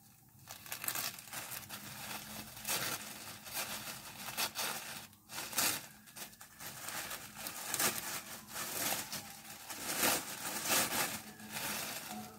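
Plastic mailer bag being torn open and its contents handled: irregular crinkling and tearing rustles.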